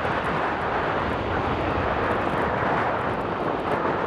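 Boeing 737-800's CFM56-7B jet engines at takeoff thrust, a steady, even jet noise heard from behind the aircraft as it accelerates down the runway.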